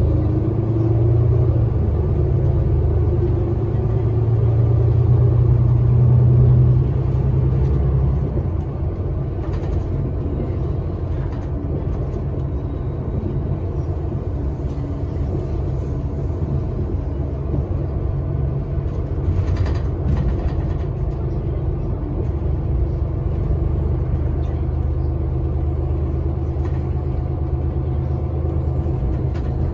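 City bus heard from inside the cabin while it drives: a steady low engine and road rumble, louder for the first seven seconds or so and then settling to a quieter level. There are a couple of brief knocks partway through.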